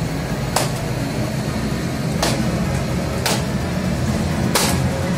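A heavy wooden pole pounded down onto wood and the ground: four sharp knocks, irregularly spaced about a second or more apart, over a steady low rumble.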